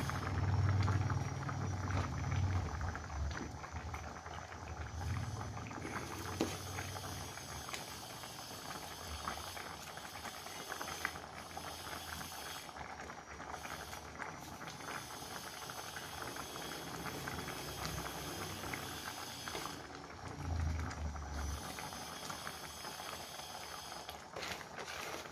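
Pangasius catfish curry broth boiling in a wok: a steady, dense bubbling with a fine crackle. Low rumbles come at the start and again about twenty seconds in.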